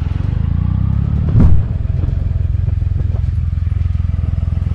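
Motorcycle engine running at steady low revs while riding, with one brief loud thump about a second and a half in.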